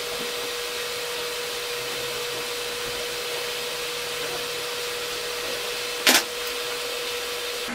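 Steady whirring hiss with a constant hum tone from the running off-grid inverter and its power-room equipment. A single sharp click comes about six seconds in as the hex key works the breaker terminal.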